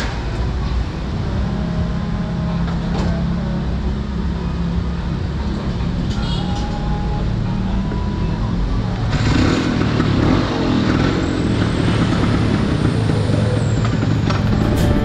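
Vespa Excel 200 scooter's two-stroke single-cylinder engine running steadily under way, with wind and road noise. About nine seconds in the noise grows louder and fuller, as of passing traffic.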